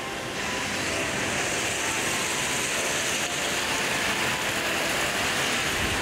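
Steady rush of a waterfall and its creek, an even hiss without breaks.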